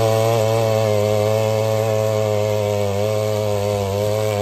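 Mini 2 HP power weeder's small 63 cc engine running steadily at high revs while its tines till the soil, the pitch wavering slightly under load.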